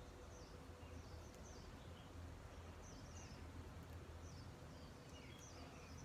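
Faint small birds chirping, short high notes coming in quick little groups, over a steady low background hum.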